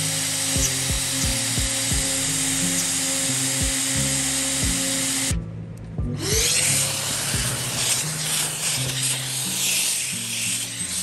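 A CNC router spindle cutting into an end-grain wooden board, a steady machine whine over the hiss of chips being cut, with background music. About five and a half seconds in the machine sound drops out briefly, then a whine rises in pitch and the cutting noise returns.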